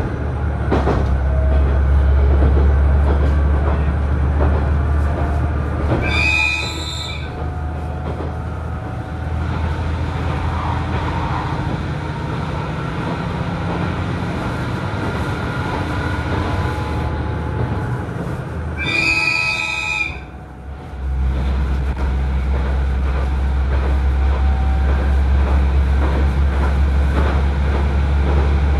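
KiHa 110 diesel railcar running, a steady low engine drone under rail and wheel noise, with two horn blasts about a second long, some thirteen seconds apart. The engine drone fades out just after the first blast and comes back shortly after the second.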